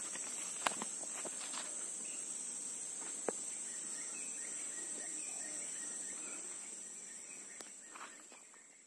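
Steady high-pitched insect drone of a tropical plantation, with a few scattered soft clicks; it fades out over the last couple of seconds.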